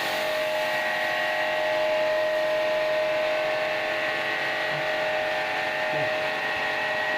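HL jet cleaner, a 700 W electric high-pressure washer, running under load: a steady motor-and-pump whine over the hiss of the water jet spraying.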